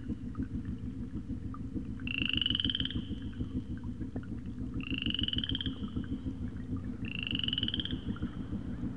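A chorus of frogs croaking in a steady, dense rattle, with a higher, slightly rising pulsed call that comes three times, every two to three seconds.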